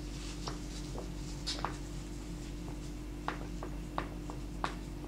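Faint, scattered light ticks and taps from a small cologne bottle and a wadded paper napkin being handled as cologne is poured onto the napkin, over a steady low hum.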